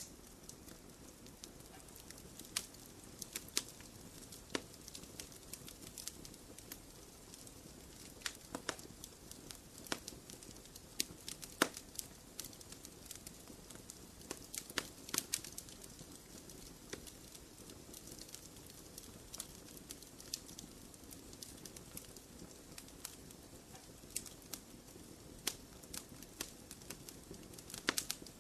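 Wood fire burning in a fireplace, crackling with irregular sharp pops over a soft low rumble of flames.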